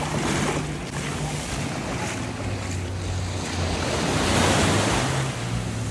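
Small waves washing up on a sandy beach, the surf swelling louder about four seconds in, with wind on the microphone.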